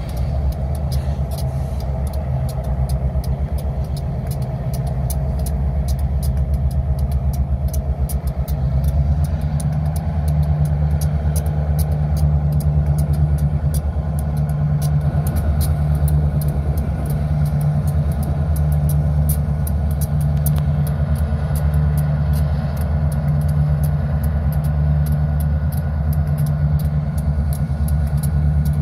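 Diesel-electric freight locomotives running their engines as they move slowly, a steady low throb that swells a little about a third of the way in as they draw closer.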